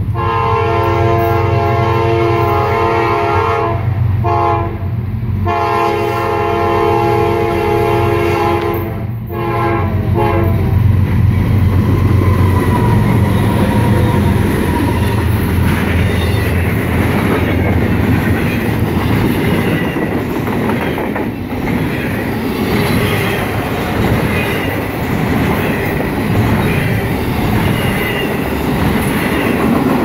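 Freight locomotive air horn sounding a series of blasts, mostly long with short gaps between, for about the first ten seconds. Then the train's double-stack container well cars pass close by with a steady rumble and clickety-clack of steel wheels on the rails.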